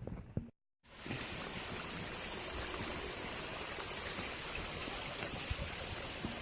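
A few soft taps, a brief cut to dead silence, then a steady, even rushing hiss.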